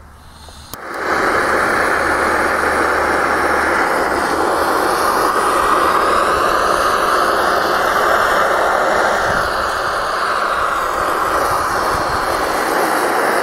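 Handheld M-951C butane torch on a gas canister burning with a steady, loud rushing hiss, starting about a second in, while it heats an aluminium-finned VW Beetle engine cylinder.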